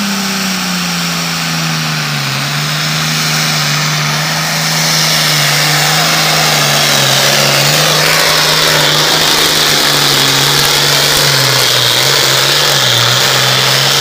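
A Super Farm class pulling tractor's turbocharged diesel engine running flat out under load while it pulls the sled. Its pitch sags a little after the start and wavers, and it gets louder about five seconds in.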